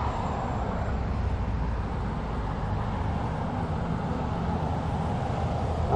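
Open-top tour bus running through city traffic: a steady low engine hum under an even wash of road and traffic noise.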